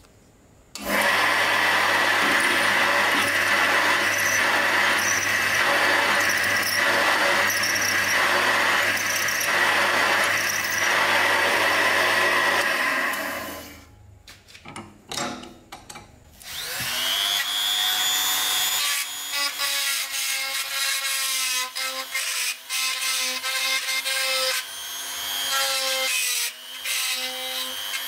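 A power drill bores into a steel flange nut clamped in a vise: a steady high whine over a low motor hum, pulsing about once a second, until about 13 seconds in. After a short pause with a few clicks, a power drill-driver spins up with a rising whine and runs in short stop-start spells, driving screws into the housing of a Makita 5012B electric chainsaw.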